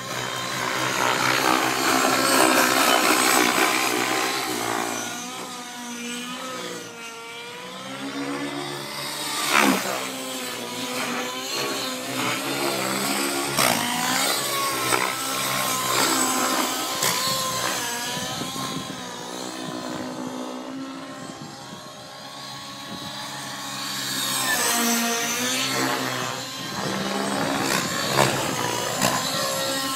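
Align T-REX 700N nitro RC helicopter in flight, its YS 120SR glow engine and rotor note rising and falling in pitch and loudness as it passes and manoeuvres.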